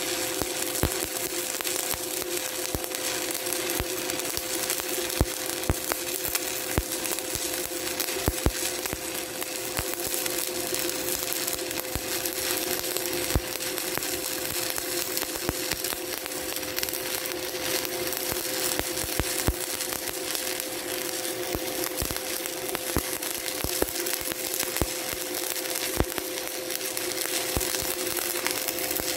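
Shielded metal arc (stick) welding with a 1/8-inch 7018 electrode at about 110 amps, reverse polarity, running a vertical-up cap pass: a continuous crackling arc with frequent sharp pops, over a steady tone.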